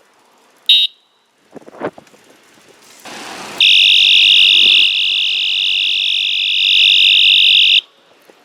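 Electronic skull bicycle horn being tested: a short shrill beep about a second in, then a loud, high electronic tone held for about four seconds that cuts off abruptly.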